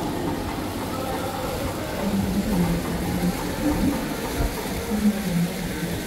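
Busy city street ambience: a steady rumble of traffic going by.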